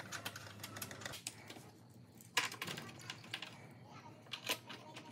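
Scattered light clicks and knocks of a Freightliner Cascadia's plastic coolant expansion tank being handled and pushed into its mounts, with the sharpest knocks about two and a half seconds in and again near four and a half seconds.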